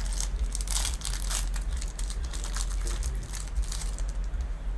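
Foil booster pack wrapper crinkling and tearing as a Yu-Gi-Oh card pack is opened by hand, in irregular crackly bursts, busiest in the first second and a half.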